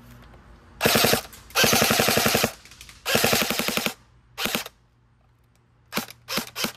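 Airsoft SCAR-L electric gun firing bursts of rapid shots, its gearbox cycling about fifteen times a second on a stock motor that the owner finds sluggish. There are four bursts of up to a second each, then a few short stutters near the end as the magazine runs empty.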